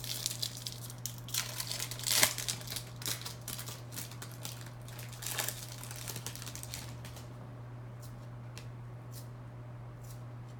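A trading card pack wrapper being torn open and crinkled, with the sharpest tear about two seconds in; the crinkling thins out after about seven seconds to a few faint ticks.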